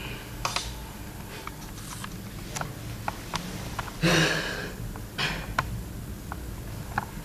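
Cloth rustling as a jacket is pulled over a seated person's head, with scattered light clicks; the loudest rustle comes about four seconds in, a shorter one a second later.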